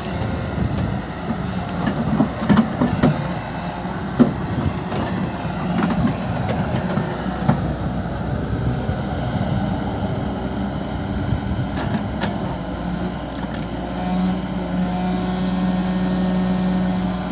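Heavy machinery engine running steadily, with several sharp knocks in the first few seconds. About fourteen seconds in, a steady pitched hum sets in.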